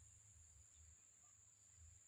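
Near silence: a faint, steady, high-pitched trill of insects over a low rumble.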